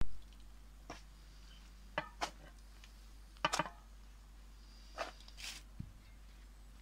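Hands mixing flour and water into bread dough on a large metal tray: a few short, separate wet scrunches and light taps against the metal. A sharp click at the very start.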